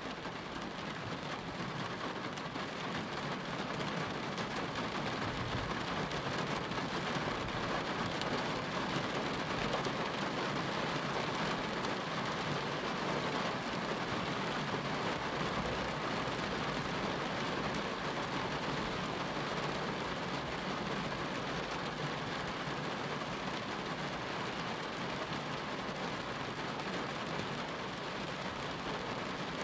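Steady rain falling, a continuous even hiss that grows a little louder over the first several seconds and then holds.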